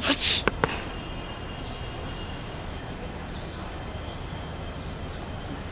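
A man sneezes once, sharply and loudly, right at the start, followed by two quick clicks. After that there is only a steady background hum.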